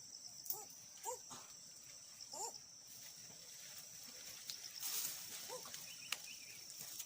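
A few short animal calls, each a brief rise and fall in pitch, scattered over several seconds against a steady high insect drone.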